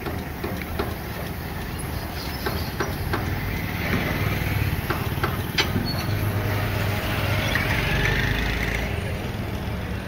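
Tyre changer mounting a tyre onto a wheel rim: its motor runs with a low hum that swells twice, with scattered sharp metal clicks.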